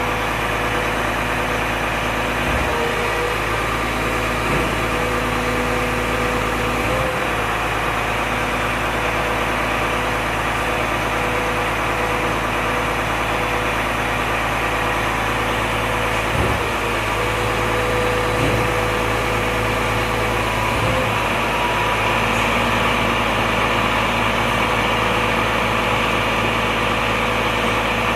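Volvo FM 370 truck engine running at a steady idle, its sound briefly faltering a few times in a hiccup-like way.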